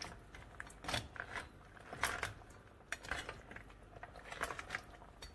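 A spoon stirring crab pieces in their shells through curry paste in a metal pot, giving irregular clinks and scrapes against the pot's side every half second or so.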